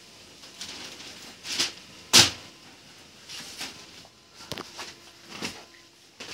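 Paper fighter kites being handled: a string of short rustling swishes and slaps as kites are lifted from a stack and laid back down, the loudest about two seconds in.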